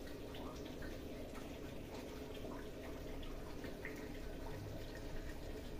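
Faint steady room noise with a few small, scattered ticks.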